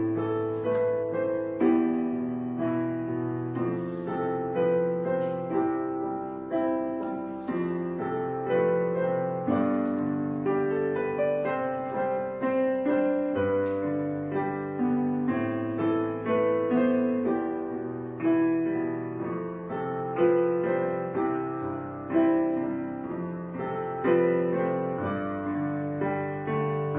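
Background piano music: notes and chords struck one after another and left to ring.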